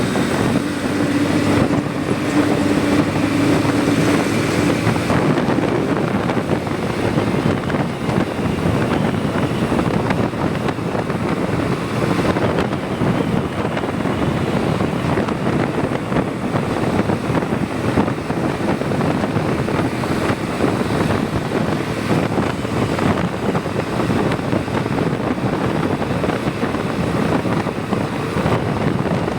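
Motorcycle being ridden at a steady pace: a steady engine and road drone with wind rushing over the microphone. A steady hum stands out for the first few seconds.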